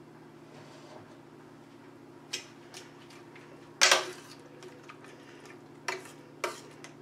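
Cookware being handled: four sharp clanks of a saucepan and a metal ladle, the loudest about four seconds in, over a steady low hum.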